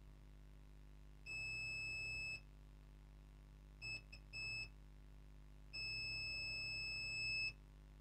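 Multimeter continuity beeper sounding a steady high-pitched tone as the test probes touch points on a laptop motherboard. It gives a beep about a second long, then a few short broken beeps, then a longer beep of nearly two seconds. Each beep signals low resistance between the probed points, as when checking a power rail for a short to ground.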